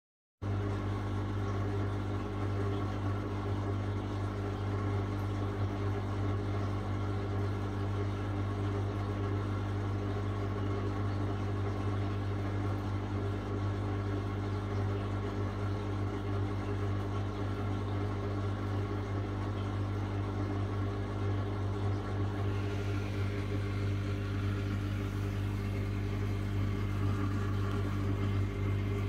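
Reef aquarium's pump equipment humming steadily: a low electrical buzz with a row of overtones above it, over a faint wash of moving water.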